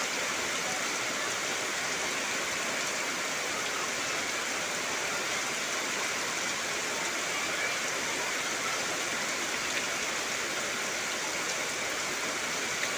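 Heavy rain falling steadily, a dense, even hiss with no letup.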